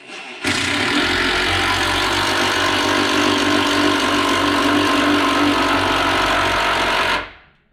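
Cordless impact driver hammering a bolt through the attic ladder frame into the wooden header, running steadily from about half a second in and stopping about seven seconds in. The bolt is only run in, not fully tightened.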